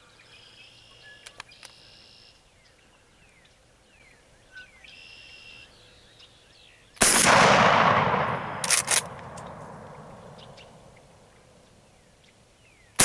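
A 12-gauge Mossberg 500 pump shotgun fires one slug about seven seconds in, and the report echoes and dies away over several seconds. About a second and a half after the shot come two quick sharp clacks of the pump action being worked.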